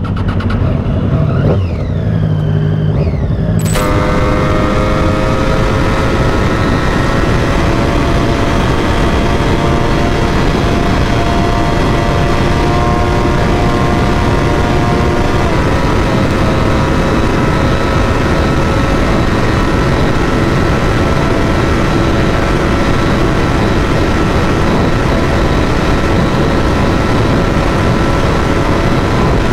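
Motorcycle engine as the bike pulls away. About four seconds in, heavy wind noise on the microphone sets in at speed, and the engine runs on steadily underneath it.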